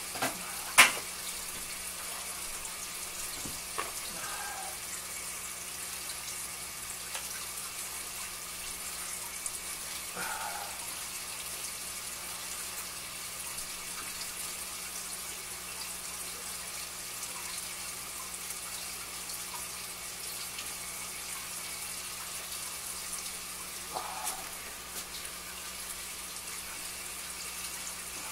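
Steady light trickle of water into a plastic 5-gallon bucket through thin clear tubing, with a faint low hum under it. A sharp knock about a second in.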